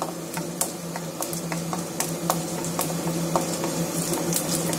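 Hot oil sizzling in a stainless steel pan with mustard seeds popping in scattered sharp crackles as urad dal fries for a tempering, while a wooden spatula stirs, over a steady low hum.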